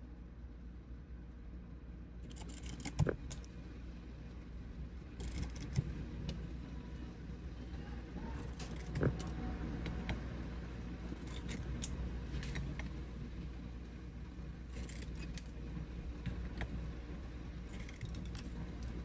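Wick trimmer clipping candle wicks: scattered sharp metallic clicks and clinks, three of them louder, over a low steady hum.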